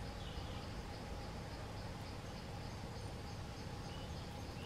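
Outdoor forest ambience: a steady hiss with insects trilling high and pulsing, and a few short bird chirps, one near the start and a couple near the end.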